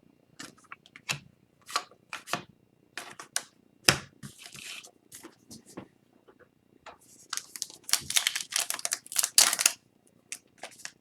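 Foil hockey card pack wrapper being torn and crinkled, with scattered sharp snaps and clicks of card handling, then a louder, dense stretch of crackling tearing in the second half as a wrapper that is hard to open is worked apart.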